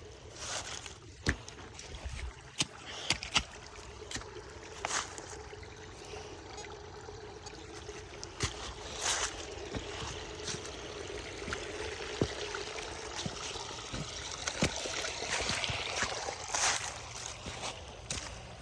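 Shallow creek water trickling and sloshing around someone wading, with scattered sharp clicks and knocks.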